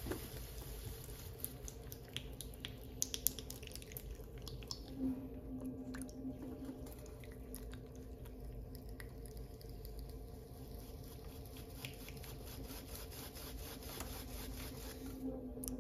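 Wet clay squishing and water dripping as hands work clay at a pottery wheel, in many small irregular squelches over a steady low hum.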